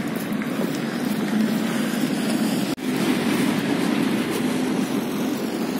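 Road traffic at a city intersection: cars and a light box truck driving past, a steady mix of engine and tyre noise. The sound drops out for an instant near the middle.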